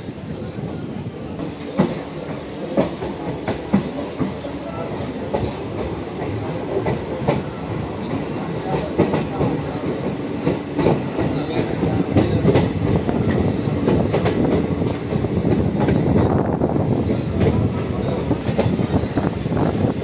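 Train running along the track, heard from aboard: a steady rumble with irregular sharp clacks of the wheels over rail joints, growing louder over the first half.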